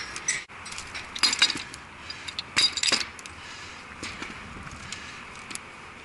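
Metal clinking and knocking as a removed brass ball valve and its pipe fittings are handled: a few sharp clinks in two clusters, about a second in and near the middle, then lighter ticks.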